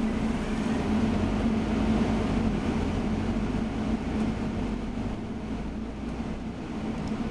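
Steady engine hum and road rumble heard from inside a moving bus.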